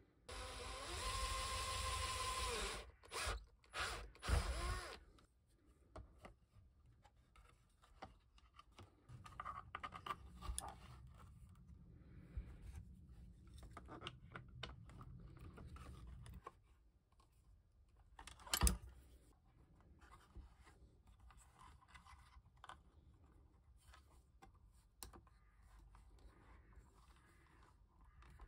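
Hands working plastic and metal parts of a small belt drive: a toothed belt, pulleys and a small stepper motor are rubbed, scraped and clicked together as they are fitted. A loud rasping rub with a squealing tone in it fills the first few seconds, and there is one sharp click a little past two-thirds of the way.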